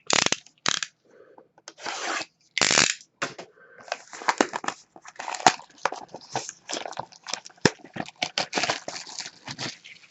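Plastic wrapping on a trading-card hobby box crinkling and tearing as it is handled and pulled open, in irregular rustles with a few sharp crackles.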